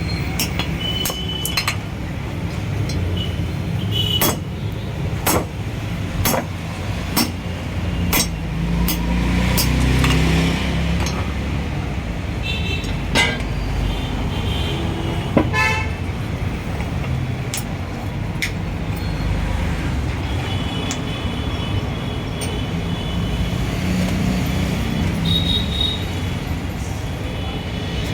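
Steel hammer blows on a Mahindra cylinder head, about one a second and unevenly spaced, as the valve guides are driven out. Steady traffic rumbles underneath, and vehicle horns toot briefly now and then.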